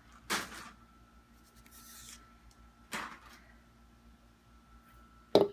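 Packaging being handled while a small figurine is taken out of its box: a few short rustles and scrapes, then a sharp knock near the end, the loudest sound.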